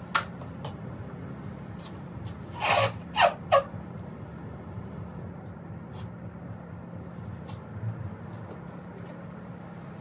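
Handling noise: a sharp click just after the start, then three short rustling scrapes about three seconds in, over a steady low hum.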